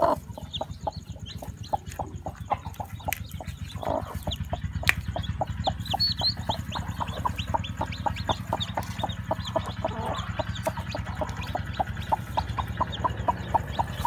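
Broody hen clucking steadily, about three low clucks a second, while newly hatched chicks peep in short, high, falling chirps.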